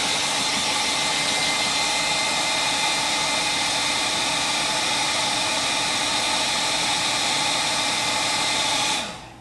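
Hand-held electric dryer blowing steadily to dry wet acrylic paint: a loud, even rush of air with a faint motor whine, switched off about nine seconds in.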